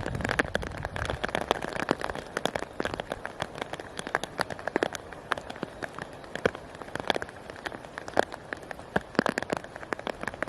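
Rain falling steadily, with many separate heavy drops striking a surface in quick, irregular succession.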